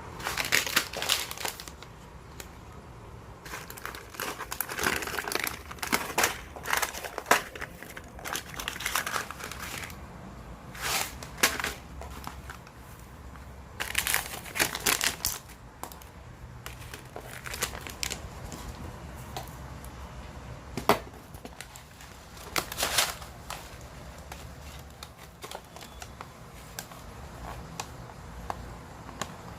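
Crinkling and rustling of something being handled by hand, in irregular bursts with short pauses between them.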